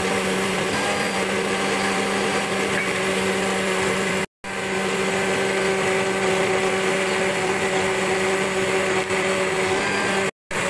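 Electric countertop blender running steadily, blending mango and milk into a milkshake, with a constant motor hum. The sound drops out briefly twice.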